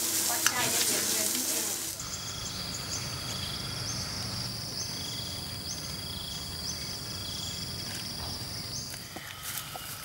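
Meat sizzling and spitting on a hot ridged grill pan over a gas burner for the first two seconds. It then gives way to a steady high drone of tropical insects with short rising chirps, and a few crackles near the end as a water buffalo crops grass.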